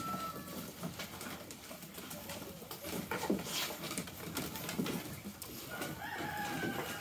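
Boxer puppies whining: a thin, high, drawn-out whine trails off right at the start, and another begins about six seconds in. In between come short scratchy scuffling sounds.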